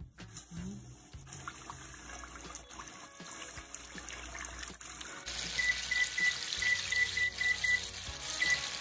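Flour-coated chicken pieces frying in a pot of hot canola oil. The sizzle swells sharply about five seconds in. Over it comes a run of about eight short, evenly spaced high beeps.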